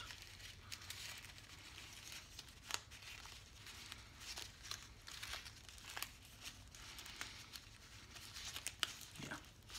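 Faint crinkling and rustling of band-aid wrappers and first aid supplies being handled, with a few light clicks and taps scattered through.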